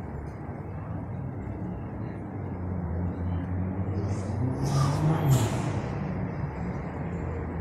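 Street traffic: a vehicle engine running low and steady, growing louder toward the middle, with a short sharp hiss about five seconds in.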